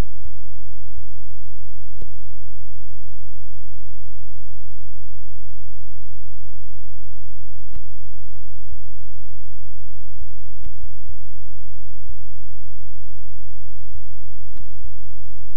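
Steady, loud low electrical hum with a few scattered clicks, and no other sound.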